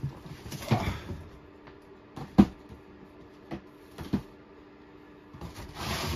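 Cardboard model-kit boxes being handled and set down. There is a scraping rustle about a second in and a sharp knock a little past two seconds. A few lighter taps come around four seconds, and a longer sliding rustle comes near the end.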